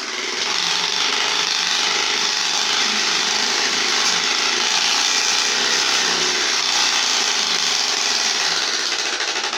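A plastic card held against the spokes of a turning bicycle wheel, flicked by each spoke into a fast, steady buzzing rattle that imitates a motorcycle engine.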